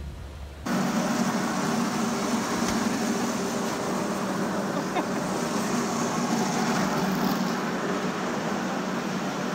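Grain-handling machinery running, with grain pouring down a steel chute into a bucket elevator's boot: a steady rushing noise over a low hum that starts abruptly about a second in.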